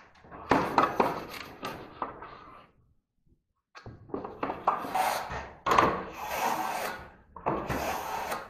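Steel plastering trowel scraping and rubbing over freshly glued fiberglass wall canvas on a drywall window reveal, pressing it down and trimming the edge. It comes in two spells of scraping strokes with a short pause between.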